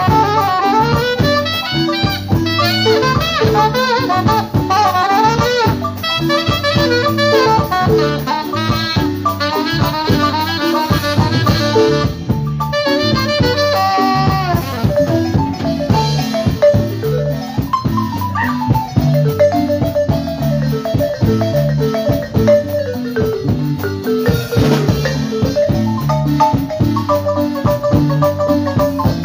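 Wooden marimba played by two players in rapid runs of notes, carrying a cumbia melody over a steady drum-kit and electric bass beat.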